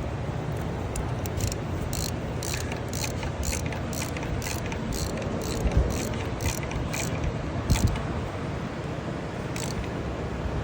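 Socket ratchet clicking, about two clicks a second, as a 13 mm bolt holding the brake booster vacuum pump is loosened. A couple of dull knocks come around the middle, over a steady low rumble.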